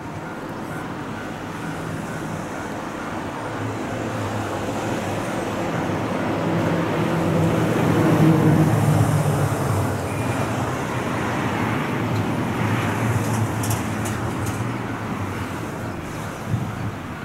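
A road vehicle passing, its engine hum and tyre noise swelling to a peak about eight seconds in and then fading, over steady traffic noise.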